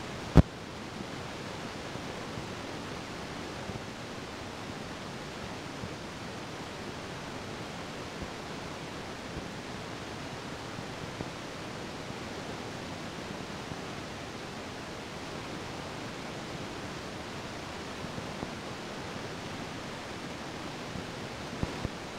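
Steady rushing noise inside a moving bus, with no engine tone standing out. A single sharp knock comes about half a second in, and a couple of small clicks near the end.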